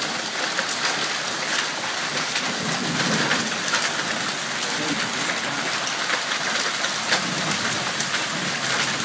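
Heavy thunderstorm downpour: a steady, loud hiss of rain dotted with many sharp ticks of drops and stones striking the ground and nearby surfaces.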